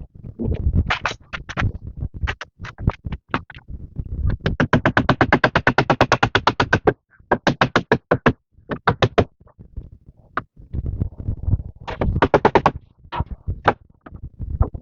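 Background music: a synthesizer playing short, clipped notes in quick rhythmic runs, with a fast burst of about ten notes a second partway through.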